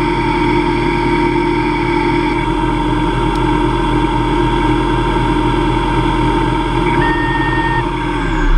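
Hobby CNC lathe spindle running at 2500 RPM while a carbide insert takes a light finishing cut in aluminium: a steady motor whine and hum. Near the end the pitch starts to fall as the spindle spins down.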